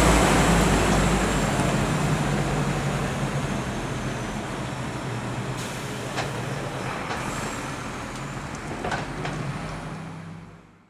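Heavy diesel truck with a low-loader trailer driving away, its engine running steadily and fading into the distance, with a couple of light knocks about six and nine seconds in.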